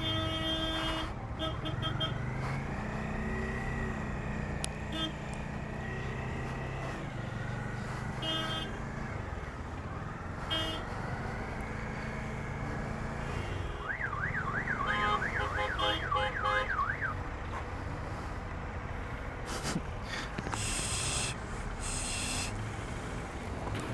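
Bajaj Dominar 400's single-cylinder engine running at low speed amid slow city traffic. About halfway through, a fast up-and-down warbling electronic tone like a car alarm sounds for about three seconds.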